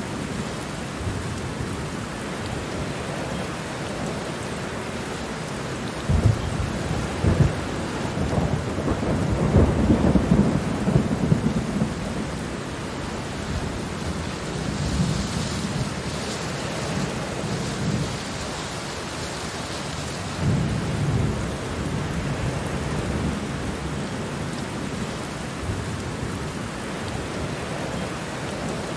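Steady rain with thunder rolling through it. A long rumble begins about six seconds in and builds for several seconds, and a shorter rumble comes about two thirds of the way through.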